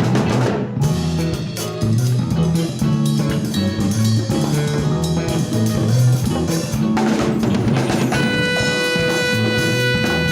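Latin jazz fusion band playing live, with drum kit and bass keeping a steady groove; a horn comes in about two-thirds of the way through and holds one long note.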